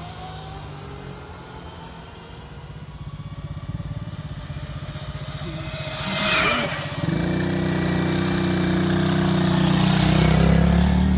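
Small motorcycles on the move. A few faint rising engine tones give way, about six seconds in, to a loud rush as a small bike rides past close by. After that a petrol motorcycle engine runs steadily close at hand.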